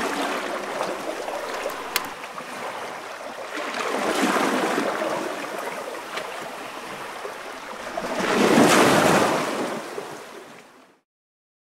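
Water waves washing and sloshing, swelling louder twice, then cutting off abruptly near the end.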